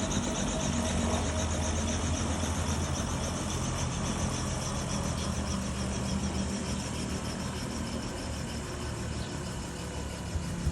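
Helicopter running on the ground after landing: a steady engine hum with an even, rapid rotor chop, slowly getting quieter.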